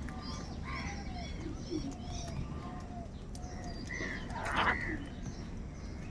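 House crows calling among a background of small birds chirping. One harsh caw about four and a half seconds in is the loudest sound, with softer short calls scattered through.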